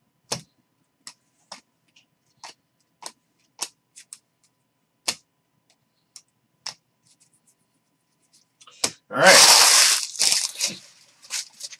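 Baseball trading cards being flipped through by hand, each card snapping against the stack in a string of sharp ticks about once or twice a second. About nine seconds in comes a louder rustling, scraping burst lasting about a second and a half.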